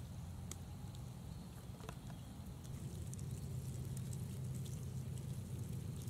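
Faint scattered ticking and pattering from masses of Brood X periodical cicada nymphs crawling over bark, over a steady low rumble.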